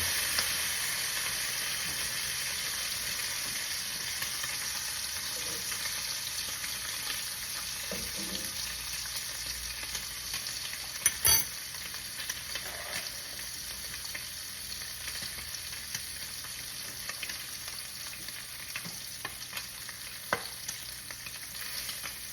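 Bacon frying in a pan: hot grease sizzling steadily with scattered small pops, easing slightly over time. A sharp knock sounds about eleven seconds in, and a smaller one near the end.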